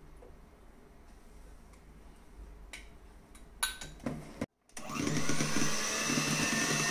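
A few light knocks of a spoon on a bowl as egg-yolk mixture is scraped in, then, about two-thirds of the way in, an electric hand mixer running steadily with its beaters whisking the yolks into stiffly beaten egg whites.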